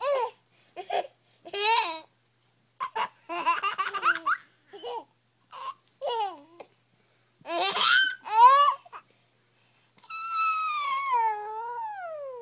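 Babies laughing in short, high-pitched bursts with squeals and babbling. Near the end, a long high call slides slowly down in pitch.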